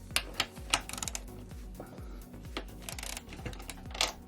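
Ratchet wrench clicking in short, irregular runs as bolts are backed out, over background music.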